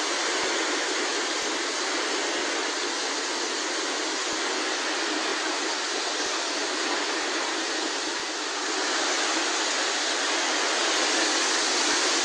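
Steady rushing of a fast, muddy flash-flood river in full spate, a little louder near the end.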